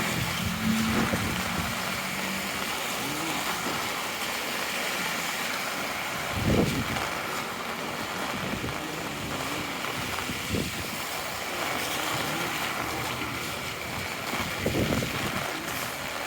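Heavy rain and gusty wind on a city street, with wind gusts buffeting the microphone three times, and car traffic on the wet road; an engine idles through the first couple of seconds.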